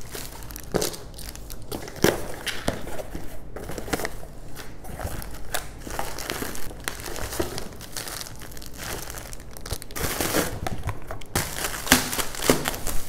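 Plastic packaging crinkling and rustling as nail supplies are handled and unpacked, in irregular crackles that grow a little louder near the end.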